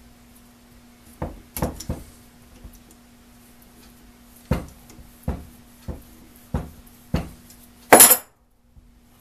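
Slip-joint pliers clicking and clinking against the steel nut on a blowtorch pump's piston rod as it is loosened to free the leather cup piston: about eight sharp clicks at uneven intervals, then a louder, longer clatter near the end.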